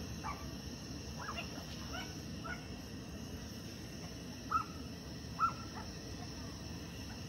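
Short animal calls, about six in a few seconds with the two loudest near the end, over a steady low background rumble.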